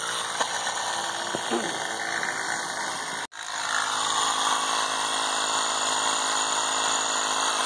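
Firestone 12-volt portable tire compressor running steadily with a mechanical buzz while it pumps air into a car tire. The sound breaks off for an instant a little over three seconds in, then carries on slightly louder.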